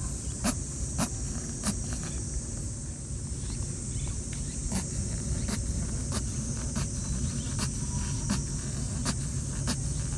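Rabbit sneezing over and over in a fit it can't stop: short, sharp sneezes about every half second to a second. After the first few there is a break of a couple of seconds, then the sneezes keep coming. A steady high insect drone runs behind them.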